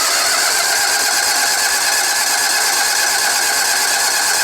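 Electric starter cranking the 16 hp Onan twin engine of a Sears garden tractor, a steady unbroken churn that the engine tries to start on without catching.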